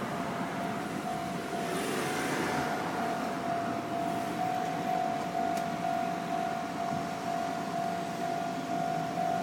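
Japanese level-crossing warning bell ringing steadily, an electronic alarm tone repeated without a break, as the crossing is held closed during freight-train shunting. A brief hiss rises over it about two seconds in.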